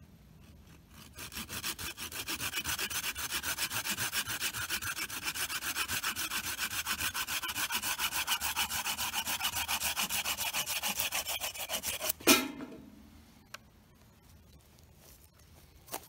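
Small hand saw cutting through a dry wooden stick in quick, even back-and-forth strokes. The sawing stops about twelve seconds in with one sharp, loud knock, followed by a few faint clicks.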